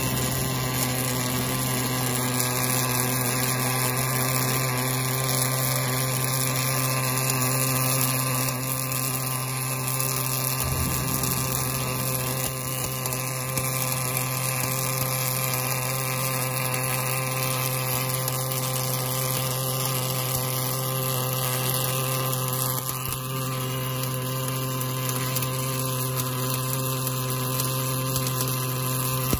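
Automatic wire-fed arc welding machine running a weld around a hydraulic cylinder rod's rod end: a steady electrical hum with a constant hiss over it.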